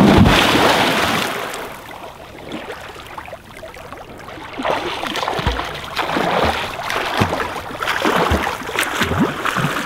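A person jumping into a lake: a big splash that dies away over about two seconds as the water settles, then, from about halfway through, repeated splashing of swimming strokes.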